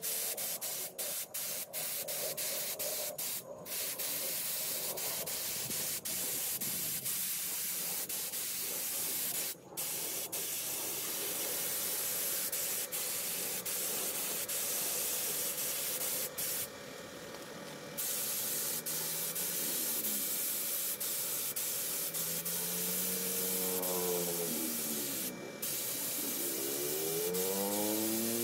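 Primer being sprayed onto a sanded car wheel rim: a steady spray hiss that stops briefly several times as the nozzle is released. Near the end a faint pitched sound rises and falls twice beneath the hiss.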